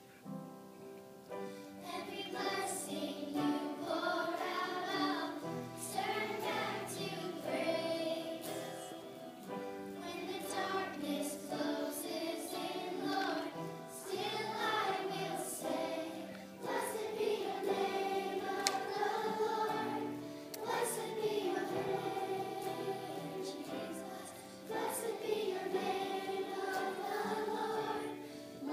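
A girl singing a song solo into a microphone, with piano accompaniment, the voice coming through a hall's sound system.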